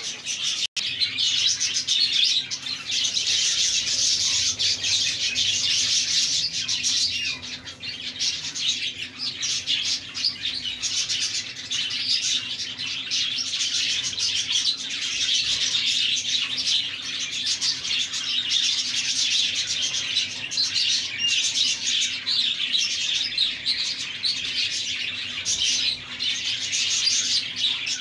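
Dense, continuous chirping chatter of a crowded aviary flock of cockatiels and budgerigars, many birds calling at once.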